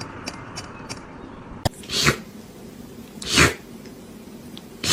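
A cat sneezing three times, each sneeze a short sharp burst, about a second and a half apart.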